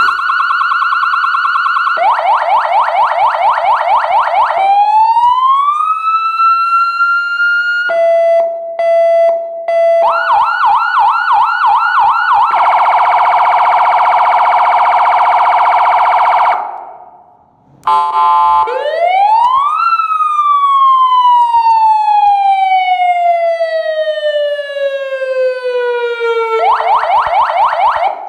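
Electronic alarm siren speaker running through its different tones one after another. It plays a fast warbling yelp, a rising sweep, a pulsed beeping tone, a harsh steady tone, and a wail that rises quickly then falls slowly over about six seconds, before the fast warble returns near the end.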